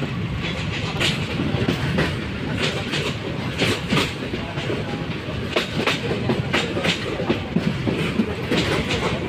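Passenger train running along the track, heard from an open carriage window: a steady rumble of the carriage with irregular clicks of the wheels over the rail joints.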